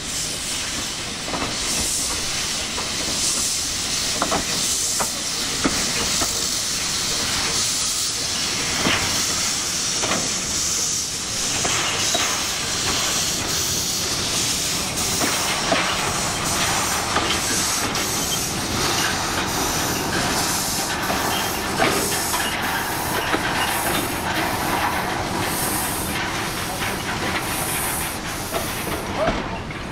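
Narrow-gauge steam locomotive hissing loudly as it vents steam. It moves off slowly with its wagons, with scattered knocks from the rolling stock and, later, a regular pulse about once a second.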